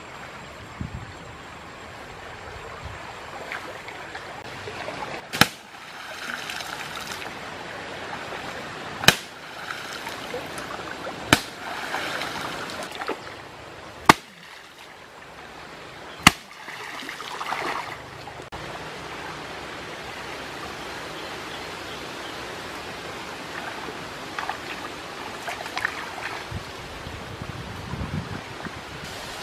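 A wooden spear struck into shallow muddy water five times, each strike a sharp smack followed by a splash, over a steady bed of running stream water.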